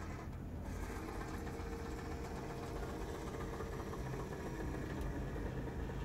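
Small electric gear motors of a DIY pan-and-tilt camera head running steadily, driving its spur gears to swing the camera.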